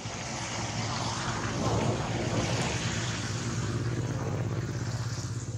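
A motor engine running with a steady low hum, growing louder about two seconds in and staying strong after.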